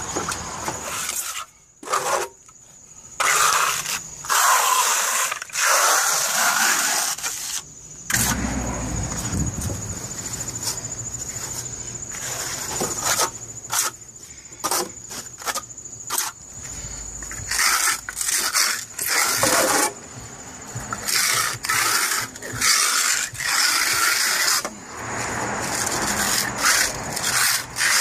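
Steel hand trowel scraping over fresh cement topping on a concrete step, in repeated irregular scraping strokes with short pauses between them. A steady high-pitched tone runs underneath.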